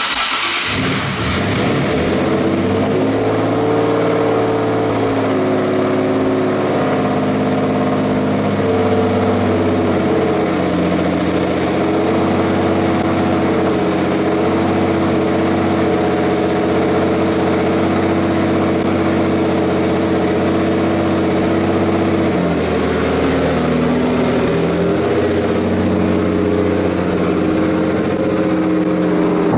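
Nissan Silvia S15's engine starting up and then running steadily, its pitch stepping up and down slightly a few times.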